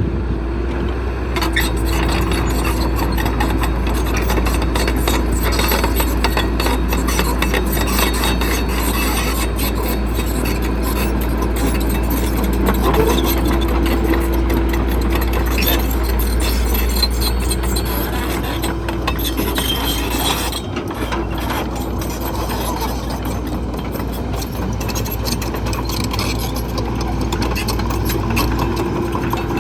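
Heavy construction machinery working: a diesel engine running under a steady low rumble and hum, with continuous mechanical clanking and grinding rattles.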